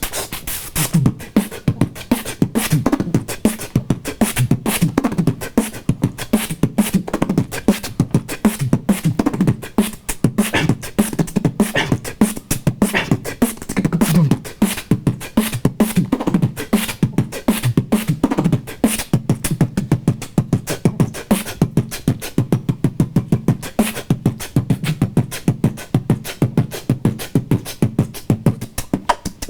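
Human beatboxing: fast, dense vocal drum hits over a low, humming bass line, the bass growing steadier about two-thirds of the way in.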